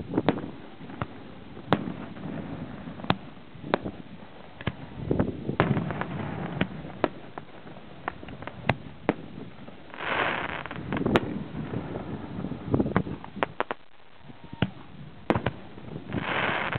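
Fireworks display: aerial shells bursting in an irregular run of sharp bangs and pops, with two short stretches of dense rushing noise, about ten seconds in and near the end.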